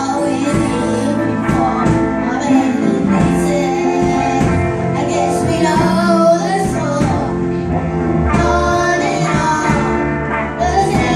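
A song: singing voices over instrumental accompaniment.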